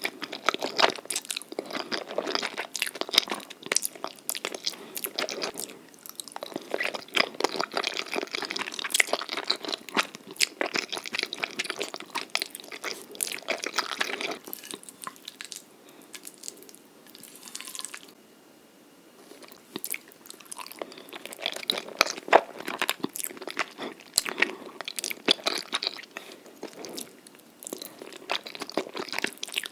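Close-miked ASMR eating sounds of a person eating jjajangmyeon (Korean black bean noodles): wet chewing and biting with crisp, crunchy bites, easing off to a lull about halfway through before the chewing picks up again.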